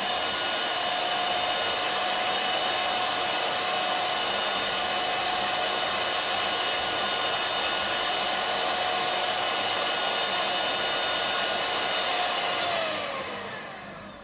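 Electric hand mixer running steadily with a whir and a whine, its beaters whipping a matcha, sugar and hot-water mixture in a glass into dalgona foam. Near the end the whine falls in pitch and dies away as the mixer is switched off.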